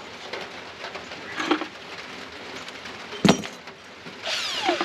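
Steel bulldozer parts being handled during a fit-up: a few light metal knocks, one sharp clank about three seconds in, then a scraping slide that falls in pitch near the end.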